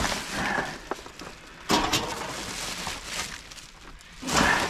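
Rubbish being rummaged through in a dumpster: irregular rustling and crackling of bags and packaging, with a sudden loud crackling knock about two seconds in and another burst of rustling near the end.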